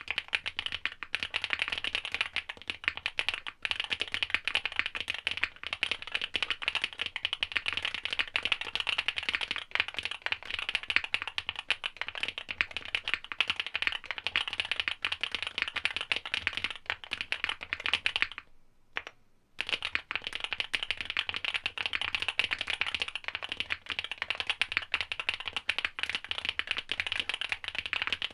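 Continuous fast typing on a Swagkeys Shelby80 mechanical keyboard with Owlab SWK Neon switches, a POM plate, Poron PCB foam, a PE sheet and GMK Hennessey keycaps. The keystrokes make a dense clatter, with a short pause about two-thirds of the way through.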